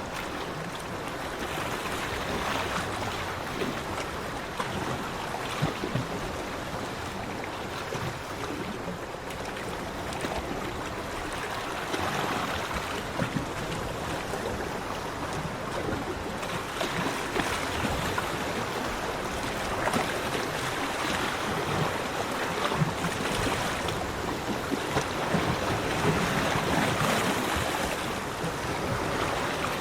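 Sea waves washing onto a beach: a continuous rush of surf that swells and eases irregularly, with no pitched sound.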